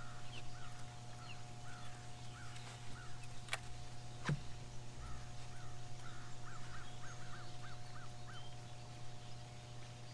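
A bird calling over and over in short, quick notes, coming faster and more evenly near the end, over a steady low hum. Two sharp clicks sound about three and a half and four seconds in.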